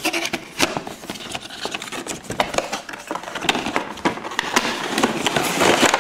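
A cardboard gift box being opened by hand: its tab pulled from the slot and the lid flap swung open, with scraping, rubbing and many sharp clicks of the card, the handling busiest near the end.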